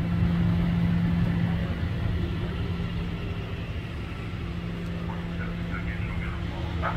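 Large truck's engine idling steadily: a low hum over a rumble, a little louder at the start.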